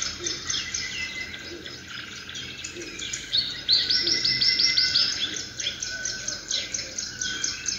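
Birdsong from a nature video's soundtrack played through the Dell Latitude 7420 laptop's built-in speakers: dense, rapid chirping repeating throughout, over a faint steady low hum.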